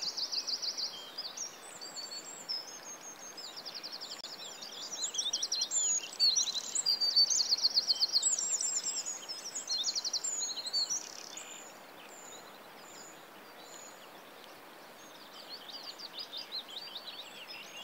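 Recorded birdsong: several birds singing rapid trills and chirps over a soft steady hiss. The songs are densest midway, drop away to the hiss for a few seconds in the second half, and start again near the end.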